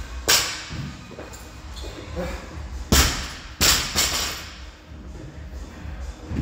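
Loaded barbell with rubber bumper plates hitting a rubber gym floor. There is one thud shortly after the start, then two loud thuds about half a second apart around three seconds in.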